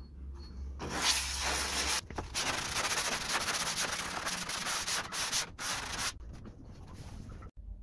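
Hand sanding along the edge of a laminate-faced board: rapid back-and-forth rubbing strokes starting about a second in, with brief pauses, stopping about six seconds in.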